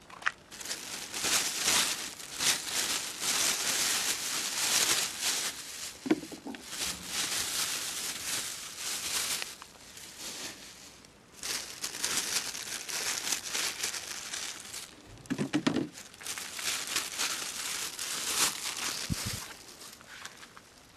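Footsteps rustling and crinkling through dry ground cover and scattered litter, in long stretches broken by a couple of short pauses.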